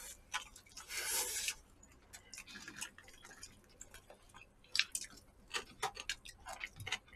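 Close-up eating sounds: wet chewing, with small clicks of chopsticks and a spoon against disposable plastic takeout bowls of noodles, and a short hissing burst about a second in.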